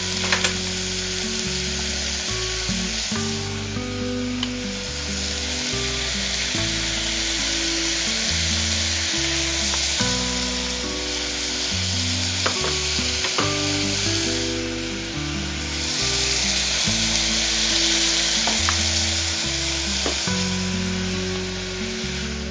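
Beetroot, onion and ginger-garlic paste sizzling in hot oil and ghee in a pressure cooker, with a few clicks of a spoon against the pot as it is stirred. Soft background music with slow stepping low notes plays under the sizzle.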